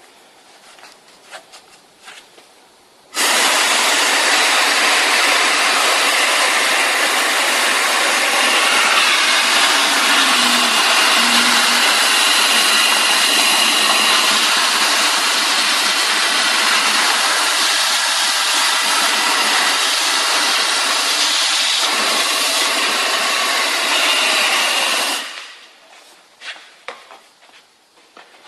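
Compressed-air-driven wet/dry vacuum cleaner switched on about three seconds in, running with a loud, steady hiss of rushing air, then shut off about twenty-five seconds in. Faint clicks and knocks before and after.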